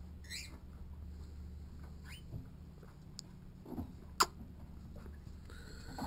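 A few faint, short squeaks from a cockatiel held in the hands, with a couple of sharp clicks, over a steady low hum.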